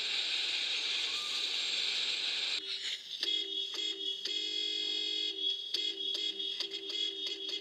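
A steady hiss that cuts off abruptly about two and a half seconds in. It gives way to a rhythmic electronic beeping pattern: short repeated low notes over steady high tones, with clicks.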